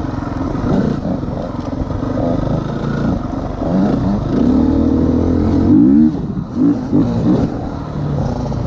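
Dirt bike engine revving under way on a motocross track, its pitch climbing and dropping several times as the throttle is opened and closed, loudest past the middle.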